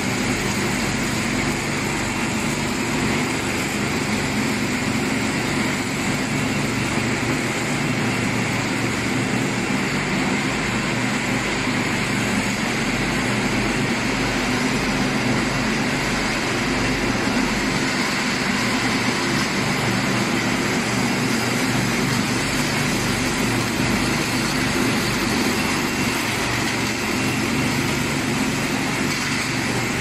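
Small air-cooled engines of two remote-controlled ride-on power trowels running steadily as the machines work across a concrete floor.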